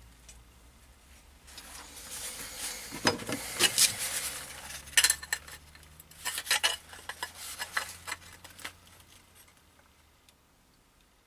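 Metal pieces being handled, clinking and clattering in a run of sharp knocks and rattles, busiest in the first half and dying away before the end.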